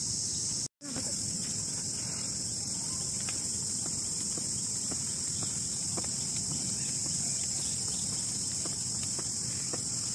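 Insects in the trees keep up a steady, high-pitched shrill drone, with faint light taps in a loose rhythm, which the stills suggest are a skipping rope striking the dirt.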